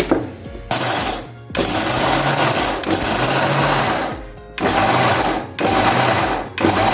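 Electric mixer grinder (mixie) running in short bursts, grinding roasted peanuts to a fine powder. It starts about a second in, runs for a few seconds, then stops and restarts several times in quick pulses.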